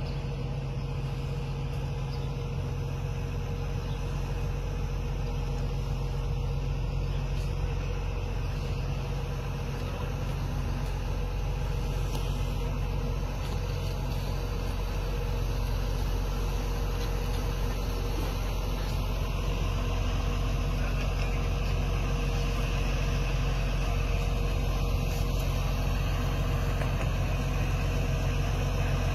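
Steady low hum of a running vehicle engine, growing slowly a little louder.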